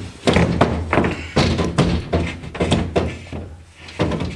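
A painted wall panel knocked and bumped into place against an aluminium frame: a string of about ten irregular hollow thunks and knocks.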